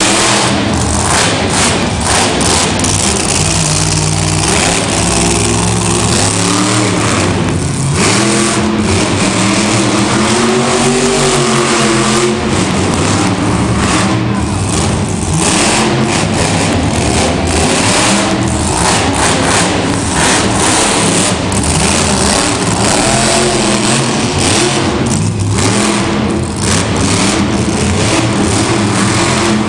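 Monster truck's supercharged V8 engine running loud, revving up and down over and over, echoing in a large indoor arena.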